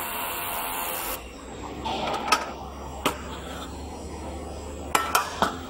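Handheld 1 kW fiber laser welder hissing steadily as it welds steel, cutting off about a second in. Then a few sharp metal knocks and clinks as the welded steel pieces and the welding head are handled.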